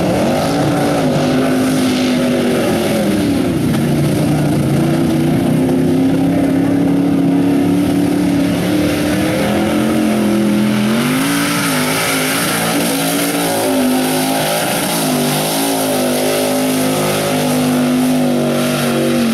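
Mega truck engines revving hard under load as the trucks run a dirt hill-and-hole course. The engine note rises and falls again and again as the throttle is worked, and a high hiss joins in about halfway through.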